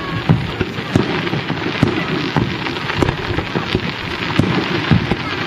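Aerial firework shells bursting in quick, irregular succession: about one to two heavy bangs a second with smaller pops between, over a steady crackle.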